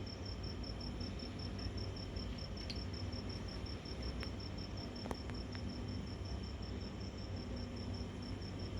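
Cricket chirping, an even string of short pulses on one high note at about five a second, over a steady low hum.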